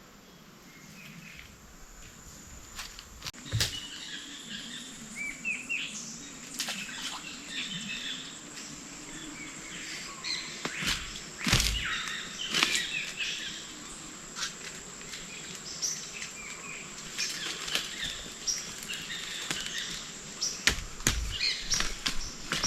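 Small birds chirping and twittering in short repeated calls, over a steady high thin tone, with scattered sharp clicks and knocks.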